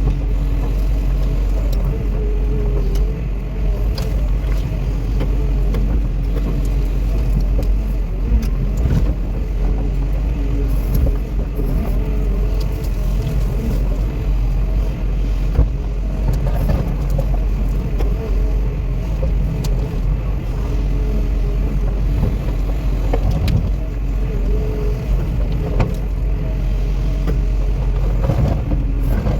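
Cat 316E excavator's diesel engine running steadily under work, with a few short knocks from the machine.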